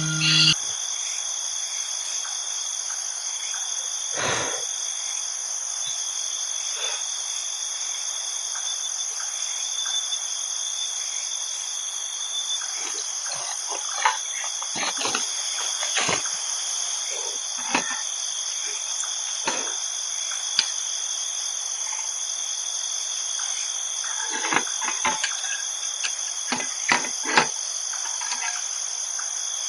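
Steady insect chorus, crickets or similar, a continuous high-pitched trill at two pitches, with scattered short clicks and knocks, several close together near the end.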